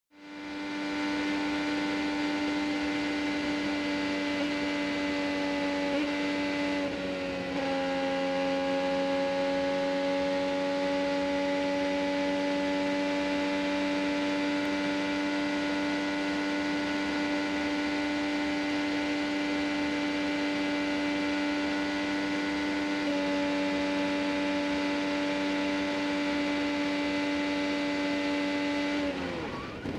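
IndyCar 2.2-litre twin-turbo V6 at full throttle, heard from the onboard camera: a steady high-revving engine note holding its pitch, with a slight dip about seven seconds in. In the last second the note falls away sharply as the car starts to spin.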